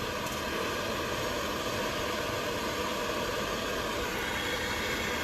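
Steady rushing hiss of a heating tool running continuously while a 4/0 wire connector is heated.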